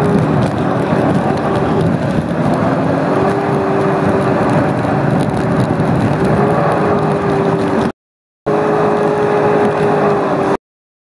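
Sea-Doo personal watercraft engine running steadily at speed, its whine wavering slightly in pitch over a constant rush of noise. The sound drops out abruptly for about half a second around eight seconds in and cuts off again just before the end.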